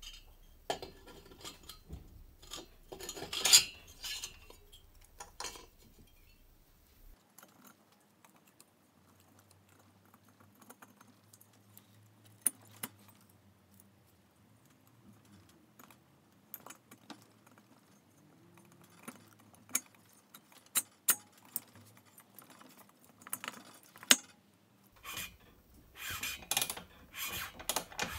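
Scattered metallic clinks and scrapes of hands handling a Vespa 150 VBB engine cylinder and sliding it over the piston onto the crankcase studs, busiest near the start and again near the end.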